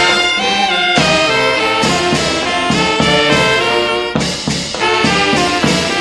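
Brass band playing, with cornets carrying the melody over a rhythmic lower brass accompaniment.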